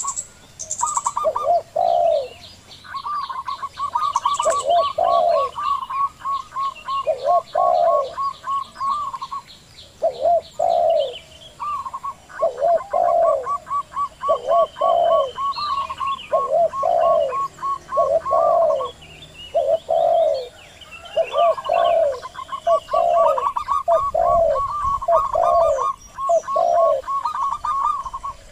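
Zebra doves cooing: a rapid string of short notes alongside louder, falling coos repeated about once a second, with small birds chirping higher up in the background.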